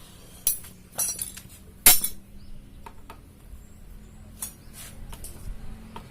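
Metal tools and engine parts clinking and knocking against each other while a scooter engine is taken apart. There are several sharp separate strikes, the loudest about two seconds in, over a faint low hum.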